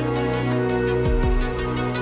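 Background music: sustained chords over a quick, steady ticking beat, with two deep drum hits just past a second in.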